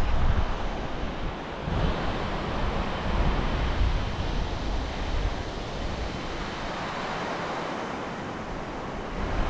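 Steady rushing noise of wind on the microphone mixed with the whitewater river below, with gusty low rumble that eases in the middle.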